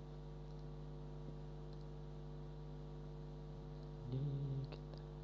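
Steady electrical mains hum with its harmonics, picked up on the recording, with a few faint clicks of a computer mouse. About four seconds in, a brief low murmur rises over the hum for half a second.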